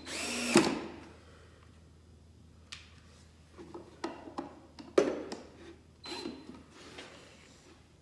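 Cordless drill driving drywall screws into a wooden box joint in several short runs, the loudest about half a second in and shorter ones between about three and seven seconds in.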